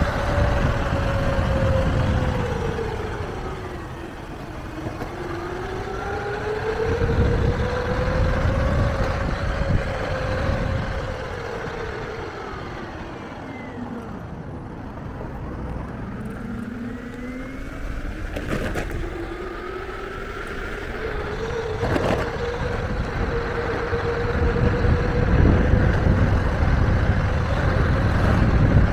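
Electric mountainboard's motor whining over the low rumble of its tyres on asphalt, the pitch falling and rising with speed: it sinks about five seconds in, fades almost away as the board nearly stops around the middle, then climbs and holds steady. Two sharp knocks in the second half.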